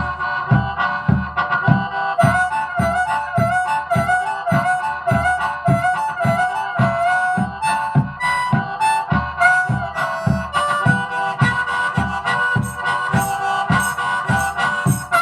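Harmonica playing a minor-key melody over a steady low thumping beat of about two to three beats a second.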